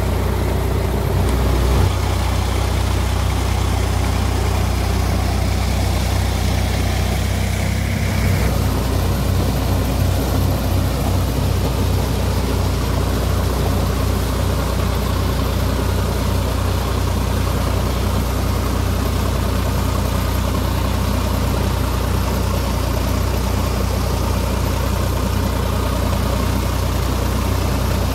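Sonalika Sikandar tractor's diesel engine running steadily under load while it drives a rotavator through wet paddy mud. The engine note changes about eight seconds in.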